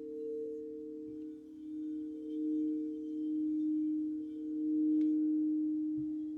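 Alchemy crystal singing bowls ringing as a sustained hum of two steady pitches, one low and one higher, swelling and fading in slow waves.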